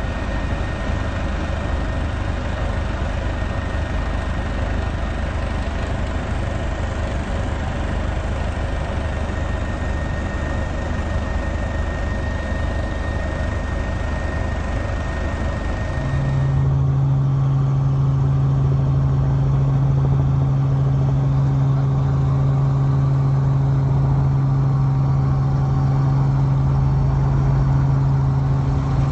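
Helicopter engine and rotor noise, steady and continuous. About sixteen seconds in it changes abruptly to a louder, steady low hum.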